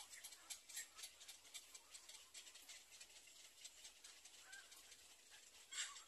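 Near silence: faint outdoor ambience with scattered faint ticks, and a brief faint bird call about a second before the end.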